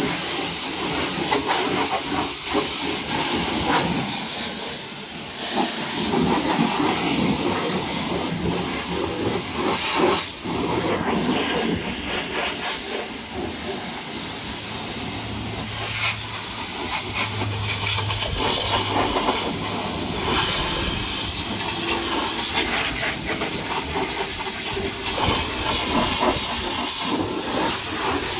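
High-pressure washer lance spraying water onto a truck crane's tyre and steel bodywork: a steady hiss of spray that eases off for a moment a couple of times.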